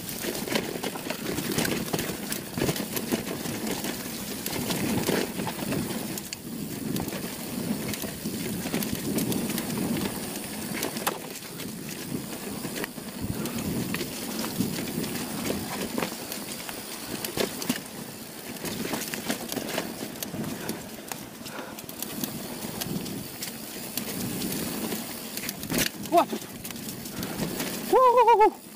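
Polygon Siskiu T7 mountain bike riding down a dirt forest singletrack: tyres rolling and crunching over dirt and dry leaves, with constant rattling clicks from the bike. A brief, loud wavering squeal comes near the end.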